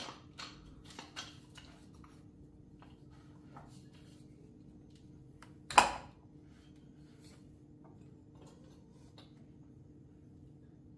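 Spark plug wire boots and a plastic distributor cap being handled: a few small clicks in the first second or so, then one sharp, louder click about six seconds in as a wire boot is worked onto the cap. A faint steady hum lies underneath.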